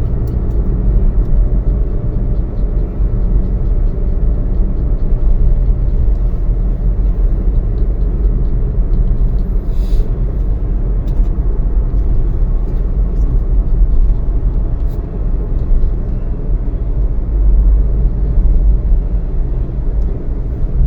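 Motor vehicle running, a steady low rumble of engine and road noise with one brief click about halfway through.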